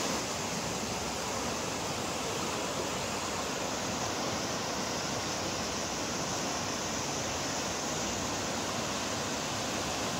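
Swollen, rain-fed river rushing through the spans of a concrete bridge and churning past its pillars: a steady, unbroken rush of turbulent water.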